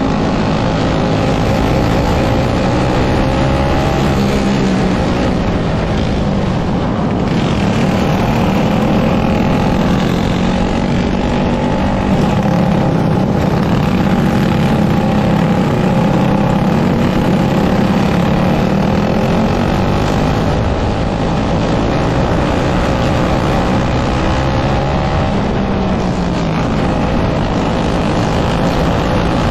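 Dirt kart engine heard from onboard the kart, running hard at racing speed. Its pitch rises and falls repeatedly as the throttle opens on the straights and closes into the corners.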